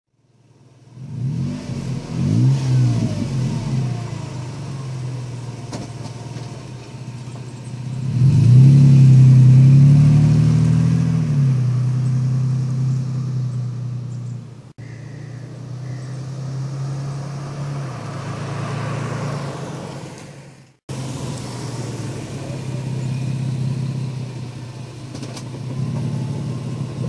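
2014 Toyota Tacoma with a TRD exhaust: the engine revs with the exhaust note climbing in pitch, is loudest under acceleration as the truck pulls away, then runs more steadily at moderate revs. The sound cuts off abruptly twice.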